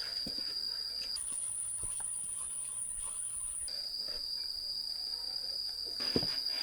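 Insects buzzing in one steady, high-pitched whine. About a second in it jumps to a much higher pitch, and after about two and a half seconds it drops back to the first pitch.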